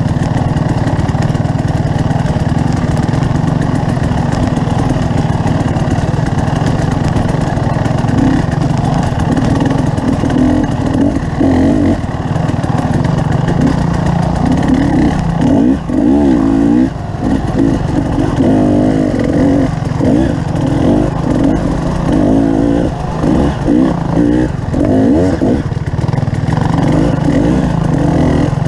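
Motorcycle engine running while riding, steady at first. Over the second half the revs rise and fall over and over in short swells.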